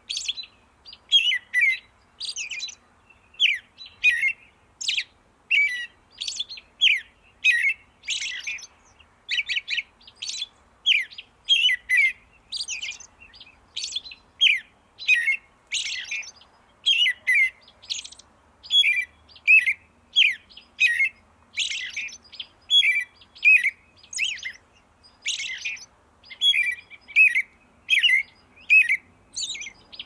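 A small songbird chirping over and over: short, sharp chirps, each a quick downward sweep, repeated about one to two times a second without a break.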